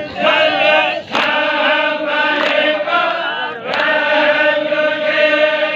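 A group of men chanting a Baloch chogan devotional chant in unison, holding long steady notes with short breaks between phrases. A few sharp claps punctuate it.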